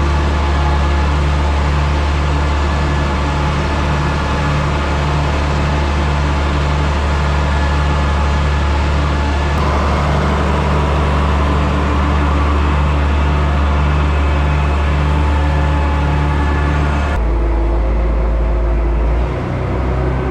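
Farm tractor engine running steadily while it drives a feed wagon's conveyor to run out cattle feed, with a regular throb about twice a second. Near the end the sound changes abruptly to a different, deeper engine hum.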